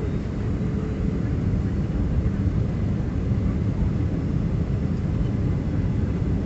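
Cabin noise of a Boeing 757-300 taxiing after landing: a steady low rumble of the engines at taxi idle, heard through the cabin.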